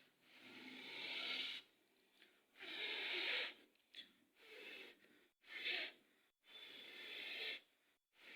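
Breathy mouth sounds of a person eating instant noodles: about seven airy bursts, each lasting from a fraction of a second to about a second, with short gaps between them.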